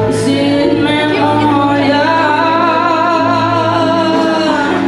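A woman singing live into a microphone, holding long notes that waver in pitch, with instrumental backing.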